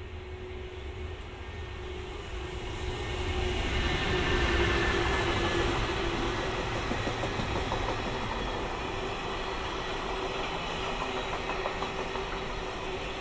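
Freight train approaching and passing at a station, growing louder over the first four seconds or so, then a steady rumble with a steady hum and the clack of wheels over rail joints.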